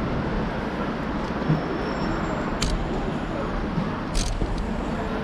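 Steady street noise with traffic and indistinct voices in the background, and a couple of sharp clicks near the middle.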